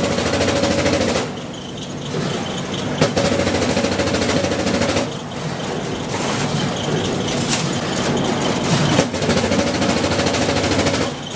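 Metalworking machine working steel wire racks: a fast, continuous rattle of impacts over a steady hum. It eases briefly twice.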